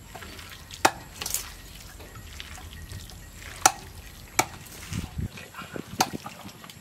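Wet squelching of bare hands pressing chopped raw pork marinated with chili into a pig's leg skin in a metal tray, with four sharp clicks spread through.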